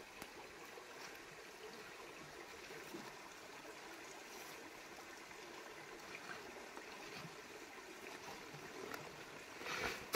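Faint steady rushing noise, with a brief louder swell near the end.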